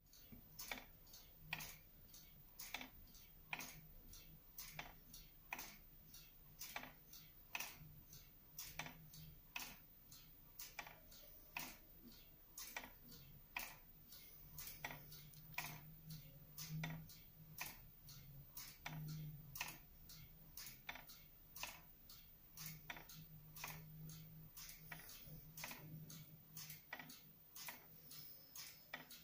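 Wooden-gear wall clock ticking: the escapement gives a steady tick-tock of sharp wooden clicks, about two a second, alternating stronger and weaker. A faint low hum sits underneath.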